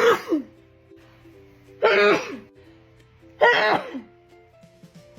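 A woman sneezing loudly three times, about a second and a half apart, each a sudden burst that tails off, over background music with steady held notes.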